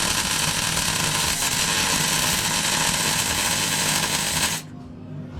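Welding arc running in a steady harsh hiss, stopping suddenly near the end.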